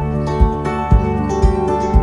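Background music with a steady beat of about two beats a second under held melodic notes.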